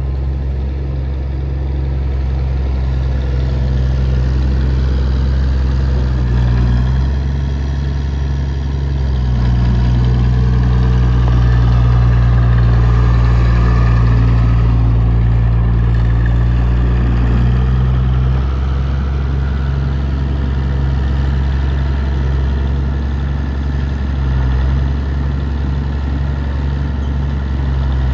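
Engine of a piece of heavy farm or construction equipment running steadily at idle. It picks up and runs a little louder for several seconds in the middle, then settles back to idle.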